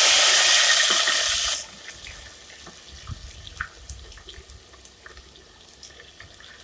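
Sliced onions hitting hot oil and ghee in a pan: a loud sizzle for about a second and a half, then a quieter sizzle with small pops and clicks.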